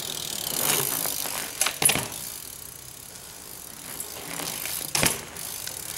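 BMX bike's freewheel hub ratcheting with a fast buzzing click as the wheel or cranks turn. A few sharp knocks come from the bike being handled, the loudest about two seconds in and another near five seconds.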